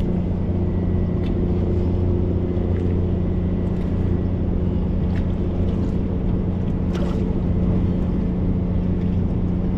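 Steady low drone of a running marine engine, an even hum with no change in pitch, with a few faint clicks over it.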